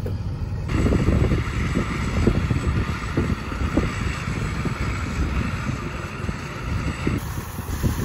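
Wind buffeting the microphone in irregular gusts over the steady running of a Gleaner combine.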